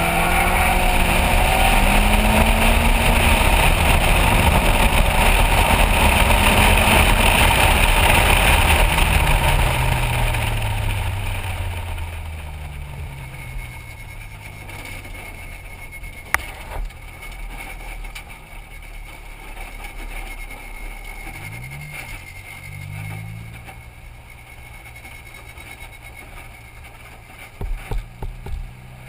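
MEV Rocket track car heard from on board, running hard with loud wind rush. After about ten seconds the engine revs fall away as the car slows, and it then runs quietly at low revs, with one brief blip of the throttle about three quarters of the way through.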